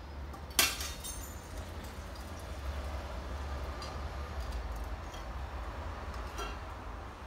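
A sharp clink of hard debris about half a second in, ringing briefly, then a few faint clicks. A steady low rumble runs underneath.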